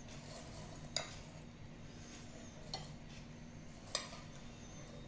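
A metal spoon clinking against glass bowls three times, about a second in, near the middle and just before the end, as crushed biscuit is spooned onto cream.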